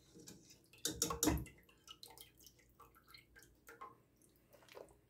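Meat broth dripping and splashing from a wire-mesh skimmer as cooked meat pieces are lifted out of a pressure cooker, with scattered small drips and ticks and a louder splash about a second in.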